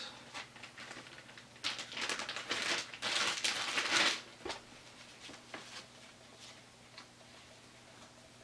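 Clear plastic packaging crinkling as it is handled and opened to take embroidered patches out, loudest from about two to four seconds in, followed by a few light rustles and ticks.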